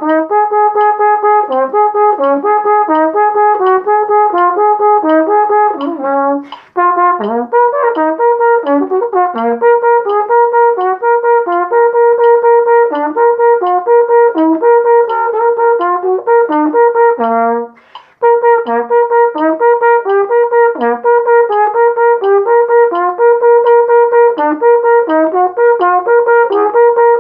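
Flugelhorn playing a practice exercise of quick, separately tongued repeated notes, with moving notes stepping around the repeated one. The playing stops briefly twice, about six and eighteen seconds in.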